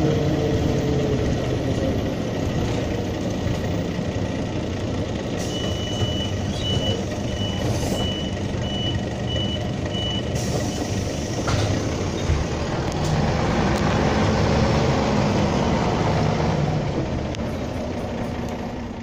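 1985 Mercedes-Benz O305 city bus heard from inside, its OM407 six-cylinder diesel running. About five seconds in, a hiss of air comes with a run of about ten short, high beeps lasting some five seconds. Later the engine note rises and falls as the bus pulls away.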